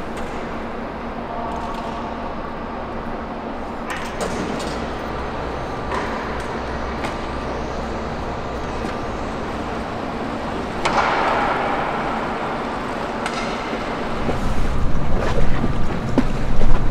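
Steady outdoor background noise, with a brief louder swell about eleven seconds in and wind buffeting the microphone over the last few seconds.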